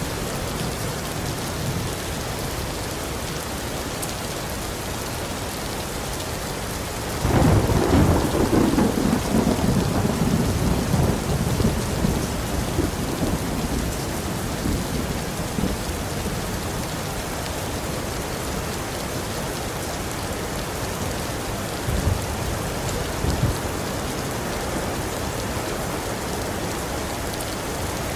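Steady heavy rain, with a sudden clap of thunder about a quarter of the way in that rumbles on and fades over several seconds.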